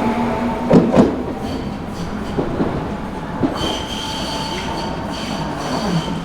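Tokyu Setagaya Line train passing over the crossing: a steady rumble from the cars, with a couple of sharp wheel knocks over rail joints about a second in. From about the middle on, a high wheel squeal runs over the rumble.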